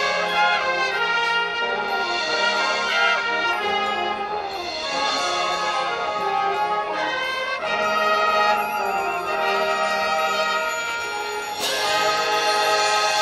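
Live marching band playing with brass and woodwinds (clarinets, saxophones, flutes, trumpets) sounding sustained melodic lines together. A louder, fuller passage comes in suddenly near the end.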